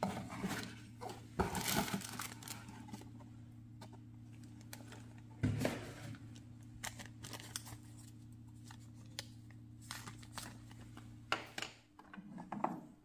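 Unboxing handling sounds: plastic zip-lock bags crinkling and rustling, with small clicks and knocks as parts and cables are picked up and set down on a table. A low steady hum runs underneath and drops away near the end.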